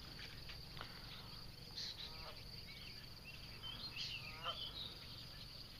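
Faint morning ambience: insects chirring steadily at a high pitch, with a few short bird calls around two seconds and four seconds in.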